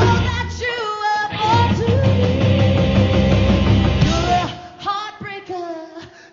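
Live rock band with electric guitar, drums and a woman singing lead. About four and a half seconds in, the full band drops away and her voice carries on over sparse backing.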